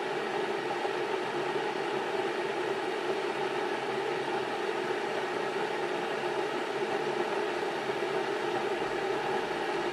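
Electric kettle heating water, a steady unbroken rumbling hiss.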